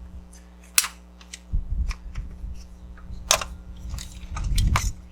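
A few sharp clicks and knocks of hands working among parts in a truck's engine bay, with low rumbling handling noise from about a second and a half in.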